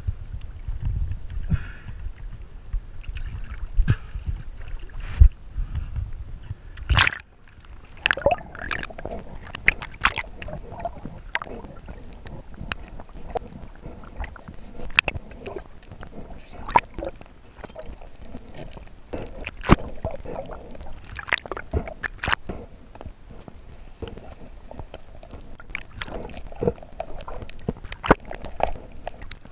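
Sea water sloshing and buffeting against an action camera at the ocean surface. About seven seconds in it changes to the muffled sound heard underwater through the camera housing, with scattered sharp clicks, knocks and gurgles, such as a speared grouper being handled on the spear shaft.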